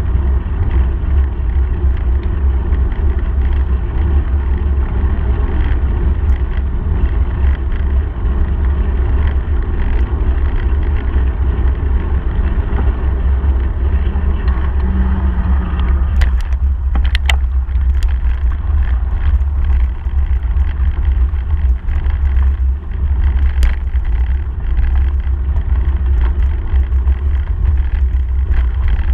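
Wind buffeting the microphone of a handlebar camera on a moving bicycle, a steady loud rumble with tyre noise from the path beneath it. A few sharp knocks or rattles come about sixteen to eighteen seconds in.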